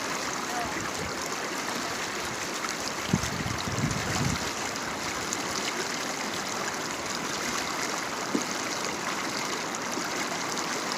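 Flowing stream water rushing steadily, with a brief low rumble about three seconds in and a small knock later on.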